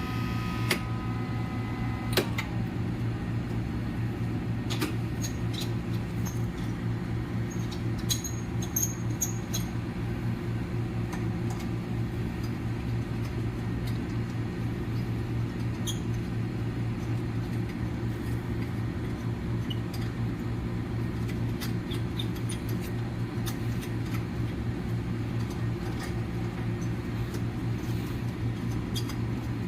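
Laboratory microwave pyrolysis unit running with a steady low hum. A higher whine dies away with a slight downward slide about two seconds in, and light clicks and ticks come and go over the hum.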